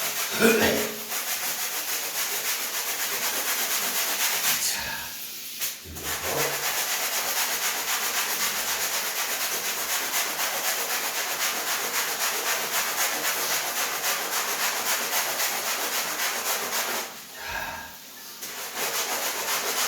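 Stiff brush scrubbing a wet, soap-lathered steam-mop cloth pad in quick repeated back-and-forth strokes, working the dirt out of the fabric. The scrubbing pauses briefly about 5 seconds in and again about 17 seconds in.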